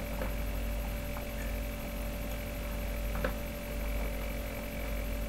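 Room tone: a steady low electrical hum with a few faint clicks, the loudest about three seconds in.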